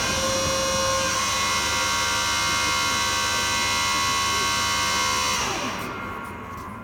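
Steady machine whine of an aircraft's powered hydraulic system running while the landing gear and flaps are extended. The whine is made of many steady tones and winds down, dying away from about five and a half seconds in.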